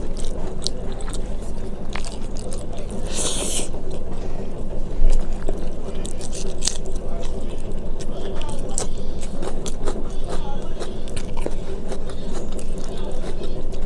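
Close-miked eating sounds: chewing and biting through a mouthful of rice and curry, with small wet clicks and smacks throughout and a short hiss about three seconds in.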